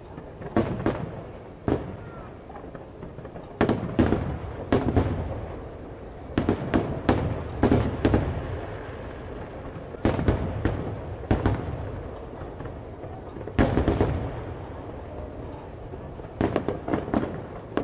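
Aerial firework shells bursting: sharp bangs coming in quick clusters of two to five every couple of seconds, each followed by a fading rumble.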